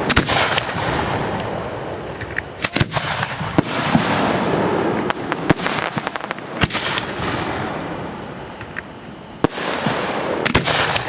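Aerial fireworks going off: sharp bangs of shells bursting at irregular intervals, about eight in all, over a steady noisy background.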